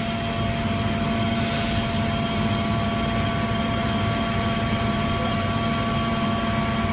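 Steady machinery hum with a few constant tones over an even rushing noise, and no hammer knocks.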